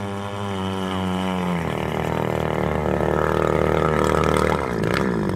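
Small petrol engine of a radio-controlled model yacht running as it cruises by. Its pitch drops about one and a half seconds in, then dips and climbs again near the end as the throttle changes.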